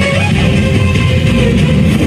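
Loud music with sustained notes, the song the dancers are performing to.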